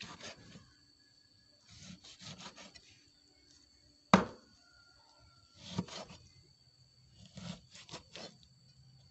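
Cleaver cutting wild boar meat and fat on a wooden chopping board: several short bouts of sawing, scraping strokes through the meat. About four seconds in comes one sharp knock of the blade on the board, the loudest sound, and a smaller knock follows near six seconds.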